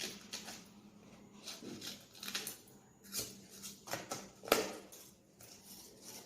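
Scissors snipping through folded paper in short irregular cuts, with a sharper, louder snip about four and a half seconds in.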